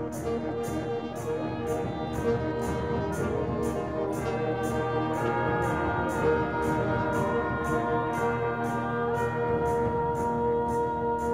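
Symphonic wind band playing sustained brass and woodwind chords over a light percussion tick that keeps a steady beat of about two a second.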